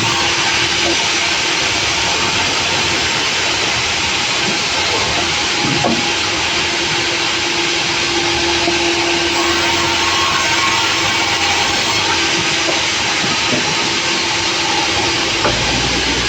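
Sawmill running: a loud, steady rush of machine and saw noise, with a low steady hum that grows stronger for a few seconds in the middle.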